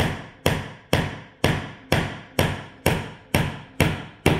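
A small 8-ounce hammer driving a nail into the end of a wooden box with steady, even blows, about two a second. Each blow is a sharp knock with a brief ring.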